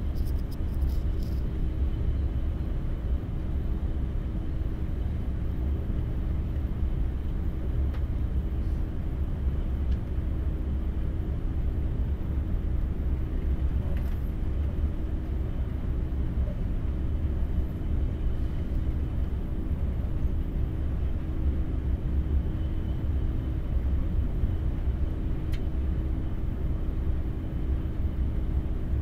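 KTX high-speed train running at speed, heard from inside the passenger cabin: a steady low rumble with a faint steady hum and an occasional faint tick.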